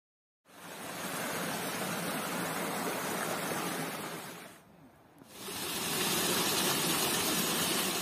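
Water of a small rocky stream rushing over a little cascade, a steady hiss. It dips briefly about five seconds in, then comes back a little louder.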